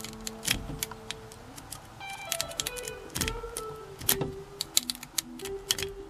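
Metal lock pick raking the pins in the dimple-lock cylinder of a Club LX steering wheel lock, making many quick, irregular metallic clicks and ticks. Music plays steadily underneath.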